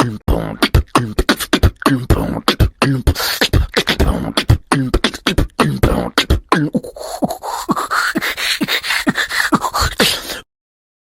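Rapid beatboxing: a dense stream of fast percussive mouth hits, with a rising vocal glide in the second half, cutting off suddenly near the end.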